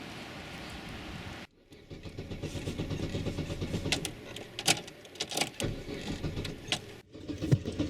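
Opel Corsa B cranking on its starter in the cold without catching, a rapid rhythmic churn that grows a little louder, with a few sharp clicks partway through. Before it, a steady hiss that cuts off abruptly about a second and a half in.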